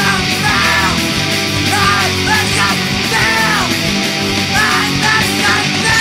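Pop-punk band recording playing: distorted electric guitars and drums at full volume.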